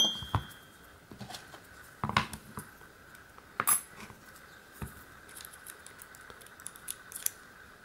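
Metal lock cylinder and small hand tools being handled: a few scattered light clicks and taps, with a faint steady hum underneath.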